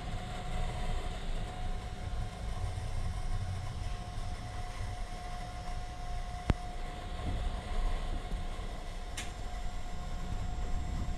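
Inside a Sapporo streetcar: a steady low rumble with a thin steady hum from the car's equipment, a single sharp click about halfway through, and a brief hiss near the end.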